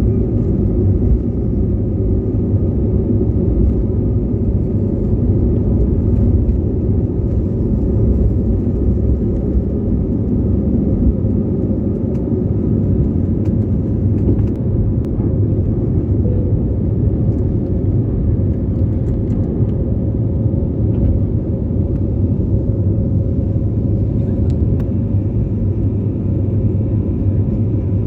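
Steady low rumble of an airliner heard from inside the passenger cabin, with a faint steady hum from the engines over it.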